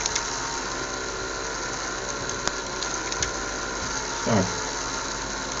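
Small fischertechnik electric motors with propellers running steadily, a mechanical whirring with a few light clicks.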